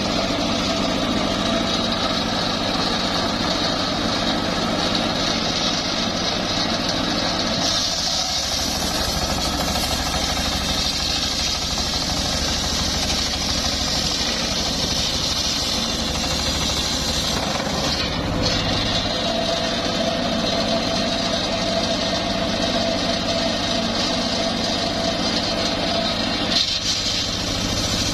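Homemade engine-driven circular sawmill running steadily while sawing coconut-palm wood, its sound changing a few times, about 8, 18 and 26 seconds in.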